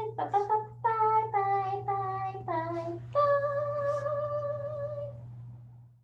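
A high voice singing a short closing tune of held notes. The notes step downward, then rise to one long note that fades out near the end. A steady low hum runs underneath.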